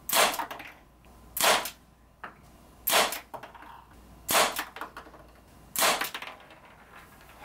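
A revolver-style BB air pistol firing five sharp shots, about one every second and a half.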